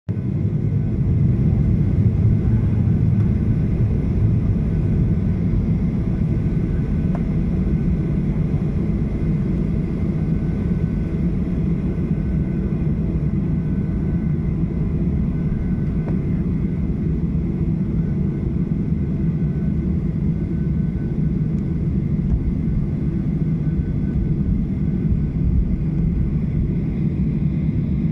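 Steady low rumble of a Boeing 737-700's CFM56-7B engines at taxi power, heard from inside the cabin as the airliner taxis toward the runway.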